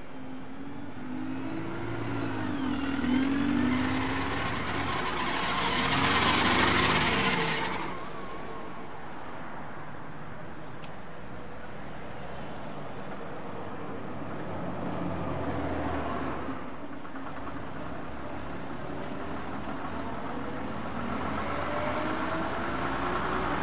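Bus engines running and pulling away, their pitch rising and falling through the gears. A loud rush of noise peaks about six to seven seconds in, and another engine climbs steadily in pitch near the end.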